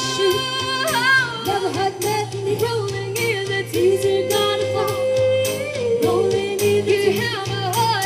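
A singer performing with band accompaniment and a steady beat; the voice slides and bends between notes and holds one long note about four seconds in.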